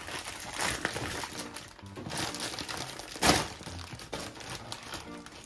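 Plastic bag of frozen udon crinkling as it is handled, with one louder rustle about three seconds in, over background music.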